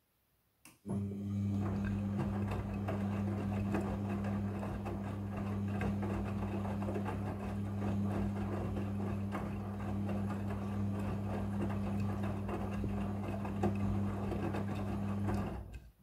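Midea front-loading washing machine turning its drum during the wash: a click, then the motor starts about a second in with a steady hum while the wet laundry tumbles and knocks inside the drum. Near the end the motor stops abruptly, the pause between drum turns in the wash cycle.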